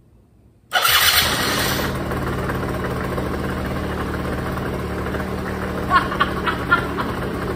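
Yamaha Zuma two-stroke scooter engine starting on the electric starter about a second in, then running steadily: its first start after sitting four years and a fuel-system rebuild.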